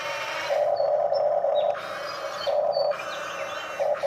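Huina remote-control excavator's small electric motors and gearboxes whining as the boom and bucket are worked, switching back and forth every second or so between a lower drone and a higher, hissier whine as different functions start and stop.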